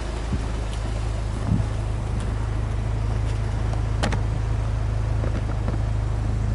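Subaru Legacy B4 Blitzen 2005's EJ20 turbocharged flat-four idling steadily, heard at its twin exhaust tips, with one sharp click about four seconds in.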